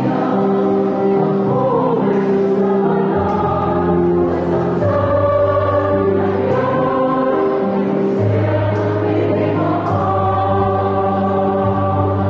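Church choir singing in slow, long-held notes.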